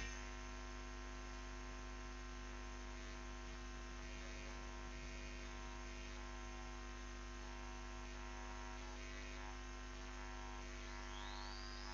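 Faint, steady electrical mains hum with its stack of harmonics: background hum in the recording, with no other sound.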